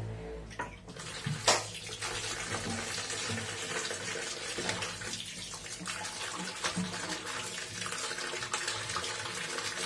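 Tap water running and splashing into a plastic basin in a steel sink as fresh fish are rinsed by hand, with one sharp knock about a second and a half in.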